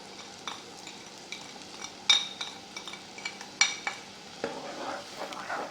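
A metal spoon stirring salt into tomato juice that is reducing in a pot, with a steady sizzle from the pot. There are several sharp ringing clinks of the spoon against the pot, the loudest about two seconds in, and scraping near the end.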